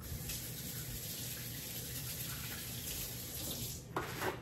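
Kitchen tap running in a steady stream, shut off a little before the end, followed by two short knocks.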